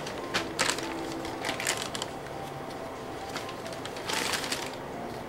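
Thin plastic shopping bag crinkling and rustling as a hand rummages inside it for a comic book, in several short bursts, the longest about four seconds in.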